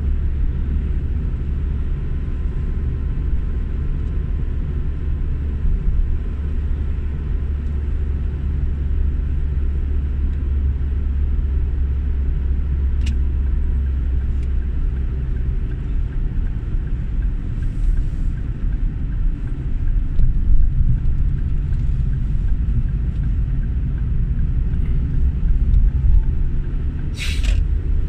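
Steady low road and engine rumble of a car driving, heard from inside the cabin, with a brief click about halfway through and a short hiss near the end.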